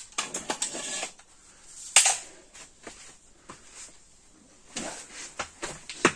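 Footsteps and handling clatter as a person moves about the room, a run of clicks and knocks with one loud sharp click about two seconds in. More knocks and footsteps follow near the end as he walks back.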